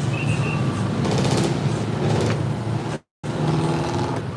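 Street traffic noise: a steady low hum of vehicle engines running. The sound cuts out completely for a moment about three seconds in.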